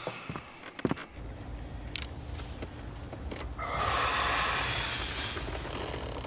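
A man's long, heavy exhale, a deep sigh lasting about two seconds, the loudest sound here. Under it a low steady rumble, starting about a second in, with a few sharp clicks in the first second.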